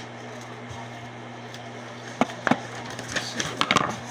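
Paper cutouts handled on a table: two sharp taps about two seconds in, then a quick flurry of clicks and crinkling rustles near the end.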